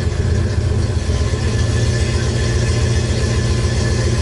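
Pickup truck engine idling with a steady, evenly pulsing low rumble.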